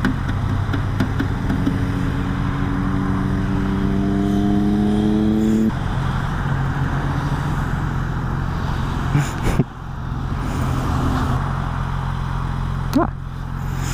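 Motorcycle engine running under way, with wind rushing past. The engine's pitch climbs steadily for about four seconds as it accelerates, then drops off suddenly. Two short clicks come later.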